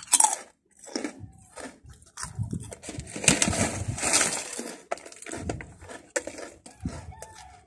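Crunchy potato chips being chewed close to the microphone, with a plastic snack bag crinkling as it is handled, loudest in the middle.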